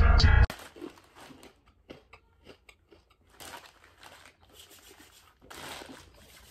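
Electronic intro music cuts off abruptly about half a second in. Faint scattered clicks and short soft breathy rustles follow, close to the microphone.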